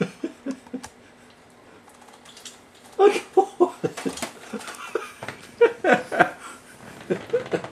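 A person laughing in short repeated bursts: a brief run at the start, then a longer bout of laughter from about three seconds in.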